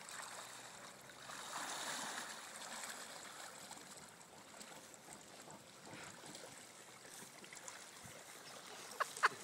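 Creek water running and splashing around a person wading through it in a survival suit, a little louder about two seconds in.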